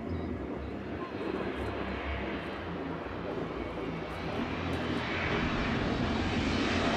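An airplane's engines growing steadily louder as the plane comes in low on a landing approach, the rush of noise building through the last couple of seconds.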